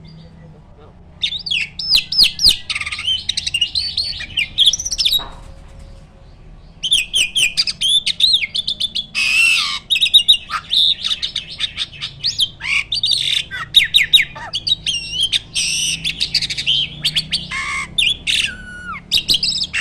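Jalak (starling) song: a fast, varied run of squawks, whistles and chattering notes, breaking off for a moment just after the start and again about six seconds in.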